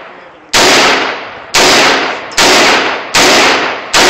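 AR-15 rifle firing five shots in steady succession, about a second apart, each loud crack followed by a fading echo.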